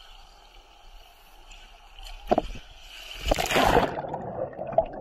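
Faint trickling pool water and a sharp knock, then a loud splash about three seconds in as the camera goes under the pool's surface, followed by muffled underwater sloshing and bubbling heard through the waterproof housing.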